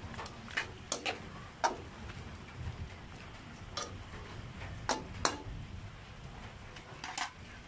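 Metal cooking utensil knocking and scraping against a wok while stirring squid adobo, in a handful of separate clinks about a second apart, some ringing briefly. The pan sizzles faintly underneath.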